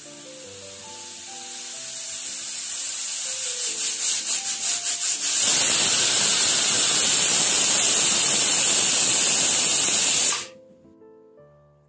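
Pressure cooker whistle on a gas stove. Steam hiss builds under the weight, flutters in quick pulses, then blows a loud, steady, shrill whistle for about five seconds and cuts off suddenly. It is one of the whistles that mark the cooker reaching full pressure.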